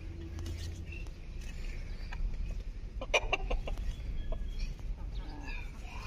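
Domestic hen clucking: a quick run of short clucks about three seconds in, and a few more near the end.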